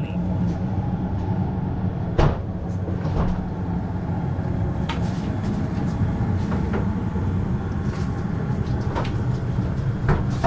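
A machine that starts abruptly and runs with a steady low hum, with scattered clicks and knocks about two, three, five, nine and ten seconds in.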